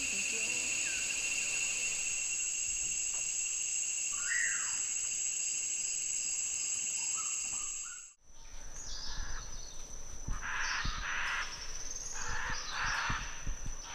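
Rainforest ambience. For the first eight seconds a steady, shrill insect chorus plays, with a single short bird call about four seconds in. After a sudden cut, harsh squawking bird calls repeat over a steady high insect tone.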